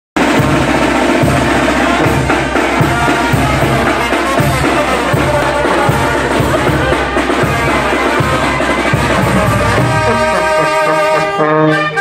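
Banda sinaloense brass band playing live: trumpets and trombones over a steady low bass and drum beat. About ten seconds in, the beat drops away and the horns play held chords.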